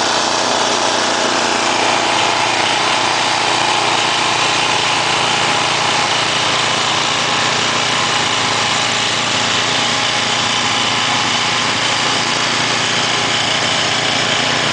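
A small engine running steadily at a constant speed, with no change in pitch or loudness.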